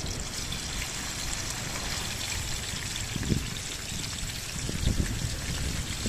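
Steady trickle of water, over a low rumble, with a soft thump about three seconds in.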